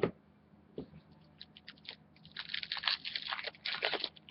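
Crinkling and crackling of a foil trading-card pack wrapper being handled and torn open, densest in the second half, after a single knock at the start.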